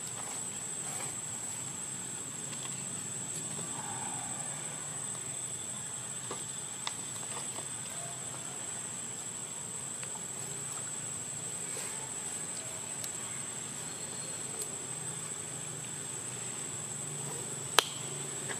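Steady high-pitched insect drone, with a few faint clicks and one sharper click near the end.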